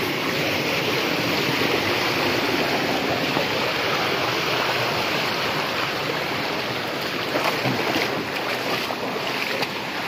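Rushing water of a rocky mountain stream near a waterfall, a steady, even noise.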